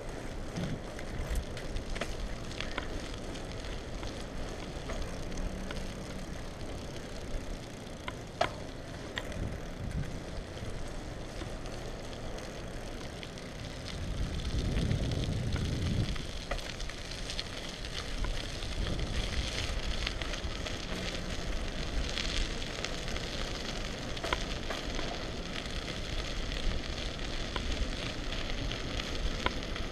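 Bicycle riding along a road: a steady hiss of the tyres rolling on rough, damp asphalt, with a few sharp rattling clicks from the bike. A louder rumble of wind on the microphone comes about halfway through.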